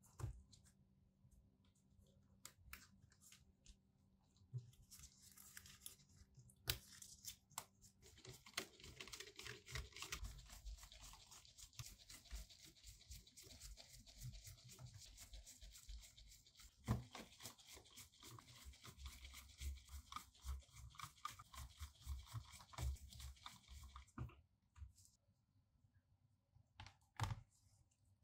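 Gloved hands working over a plastic laptop screen lid: a faint, long scratchy rasp from about 8 to 24 seconds in, with small clicks and taps throughout and a few sharper knocks.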